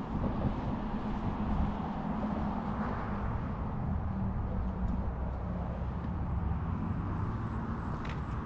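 A motor running steadily with a low, even hum and rumble.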